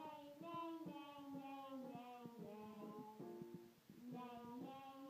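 A young boy singing a melody in smooth, held notes, over a light accompaniment of short plucked notes.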